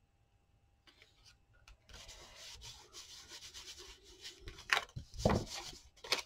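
Rubbing on paper, a rhythmic scuffing for a couple of seconds as a paper piece is worked onto a journal page, followed by two thumps and a few light clicks near the end.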